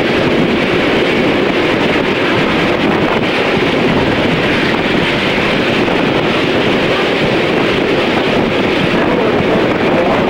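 Steady noise of a railway passenger coach rolling along the track, with wind buffeting the microphone at the open window.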